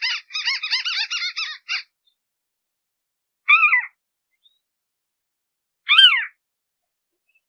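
White-browed crake calling: a fast chattering run of short repeated notes that stops about two seconds in, then two single downward-sliding calls, about 3.5 and 6 seconds in.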